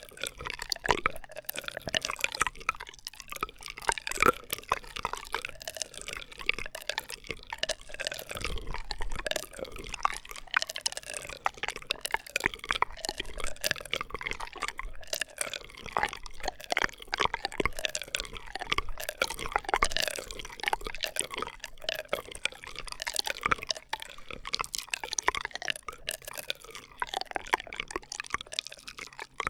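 ASMR straw sounds close to the microphone: a continuous stream of wet, bubbly clicks and pops.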